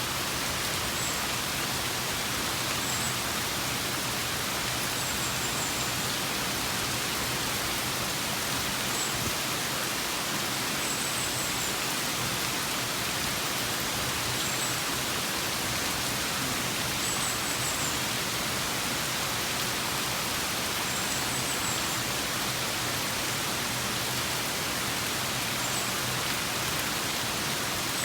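Steady rain falling, a dense, even hiss. A faint high chirp comes back every couple of seconds.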